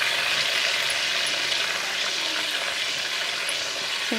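Soaked rice and cumin sizzling in hot oil in a metal karahi just after the rice is poured in: a steady frying hiss from the wet grains meeting the oil, easing slightly toward the end.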